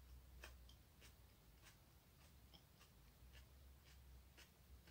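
Near silence over a low hum, with faint soft clicks about twice a second: a person chewing a small chili pepper with the mouth closed.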